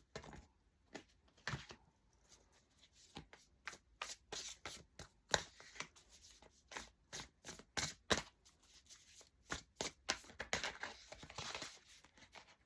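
Light Seers Tarot deck being shuffled by hand: irregular soft snaps and clicks of cards against each other, with a longer, denser rustle about ten seconds in.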